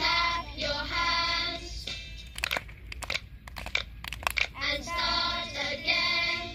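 A group of children singing a song together in two phrases. Between the phrases comes a quick, irregular run of sharp clicks.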